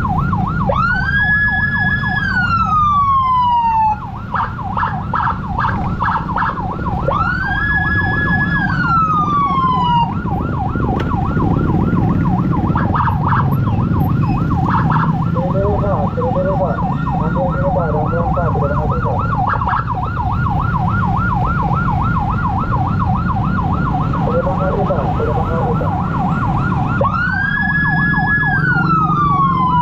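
Emergency sirens in slow traffic. A fast warbling siren runs throughout, and a second siren sweeps up, holds and falls away three times: about a second in, about seven seconds in, and near the end. Underneath is the low running of a motorcycle engine.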